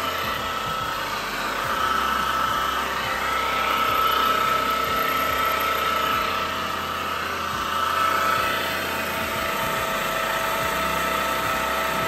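Overhauled Volvo Penta HS1A marine transmission (2:1 reduction) running under test, a steady mechanical hum with a thin, steady high gear whine. It is the sound of a quiet-running rebuilt gearbox at working temperature.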